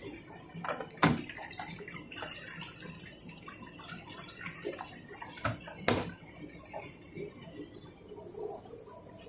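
Water running into the detergent drawer of a Candy Grand'O Vita front-loading washing machine as it fills for a rinse. A few sharp knocks stand out, about a second in and again near six seconds.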